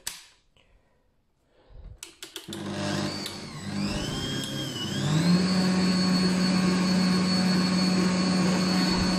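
A Bosch stand mixer is switched on with a click about two seconds in. Its motor starts up, the whine rising, dipping and rising again, then from about five seconds in it runs at a steady speed, beating cake batter in the steel bowl.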